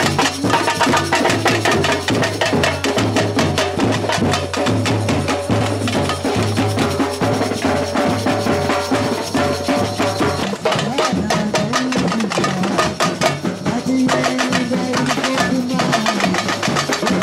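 Samba batucada drum band playing a fast, steady rhythm.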